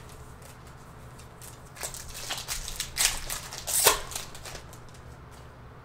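Plastic-foil wrapper of a trading card pack being torn open and crinkled: a run of crackly rustles starting about two seconds in, loudest around three to four seconds in, then dying away.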